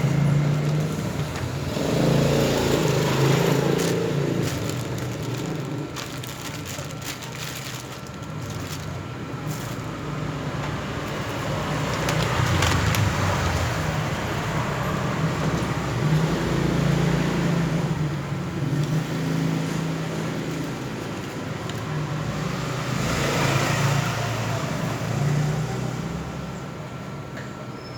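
Road traffic passing close by, vehicles swelling and fading every several seconds over a steady low hum. A run of short clicks comes about a third of the way in.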